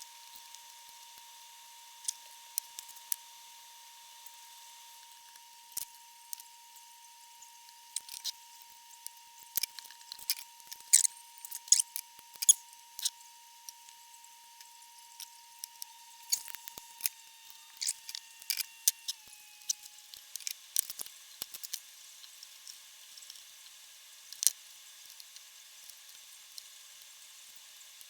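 Scattered small, sharp clicks, irregular and thickest in the middle, over a faint steady high whine that dips slightly in pitch about two-thirds of the way through.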